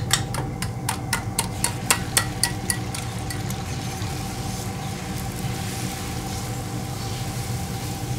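Eggs being beaten in a stainless steel bowl, the utensil clinking against the bowl about four times a second for the first three seconds. Then a steady sizzle as the beaten egg is poured onto a hot griddle and spread, over a steady hum.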